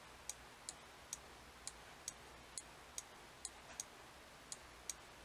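Faint, light clicks at a computer, about two a second and slightly uneven in spacing, as the map is stepped along the trail.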